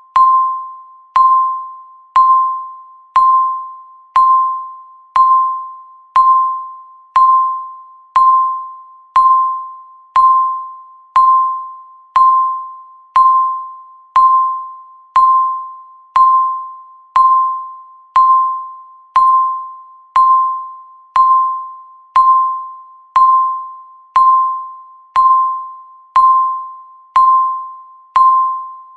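Countdown timer beep sounding once a second, steady and regular: each beep is a single clear tone that starts sharply and fades away before the next.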